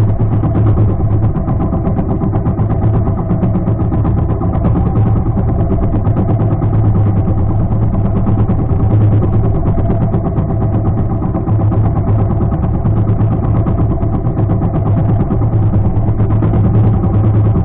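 Outrigger fishing boat's engine running steadily, a loud continuous low hum with a fast, even pulse.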